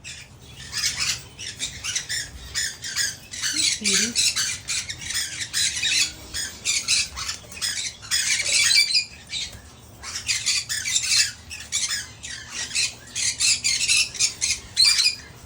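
Parrots squawking and chattering in a rapid stream of short, high-pitched calls, busiest about eight to nine seconds in, with a brief lull near ten seconds.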